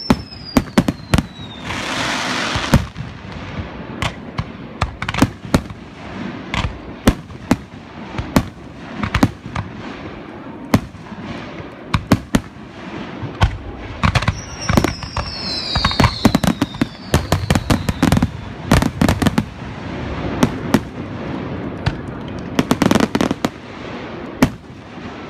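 Aerial fireworks shells bursting one after another in a rapid barrage of sharp bangs. A dense crackling rush comes about two seconds in, and two falling whistles sound, one at the start and one midway.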